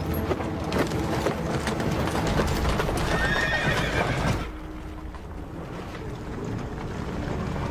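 Horses' hooves clopping and stamping as a group of mounted riders shifts about, with one horse neighing about three seconds in. The hoof noise drops away after about four and a half seconds, leaving a quieter background.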